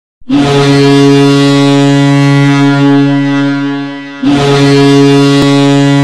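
Ice hockey goal horn, a fake (a stock horn sound rather than the arena's own horn), blowing two long, steady blasts; the second starts about four seconds in.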